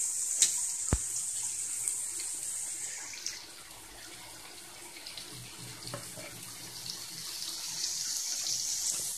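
Mutton frying in ghee in a pan, a steady sizzle. The sizzle eases about three seconds in and builds again near the end, with a couple of sharp taps in the first second.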